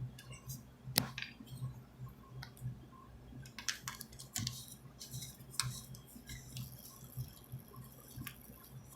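Faint scattered clicks and scrapes of electrical wires being handled and a plastic wire nut being twisted on, the sharpest click about a second in and a cluster of them around the middle, over a low steady hum.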